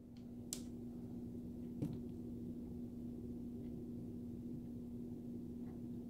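A few faint clicks, two of them clearer about half a second and two seconds in, as the minute hand of a quartz grandfather clock is turned by hand, over a steady low hum.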